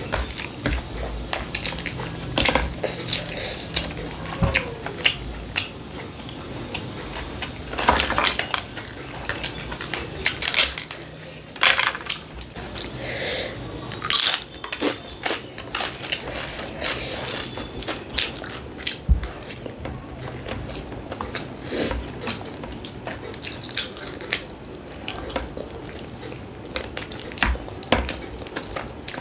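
Dishes and cutlery clinking and scraping in irregular sharp clicks, with crunching eating sounds between them.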